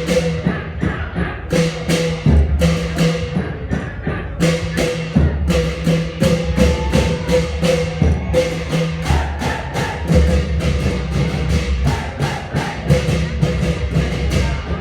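Thai klong yao long-drum ensemble playing a traditional rhythm: deep booming drum tones under a quick run of sharp, ringing strikes, several a second.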